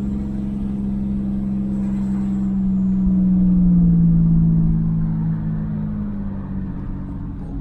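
GMC Syclone's turbocharged engine pulling the truck along, heard from inside the cab, with road rumble underneath. The engine note holds steady, dips slightly in pitch around the middle, rises again and fades a little near the end.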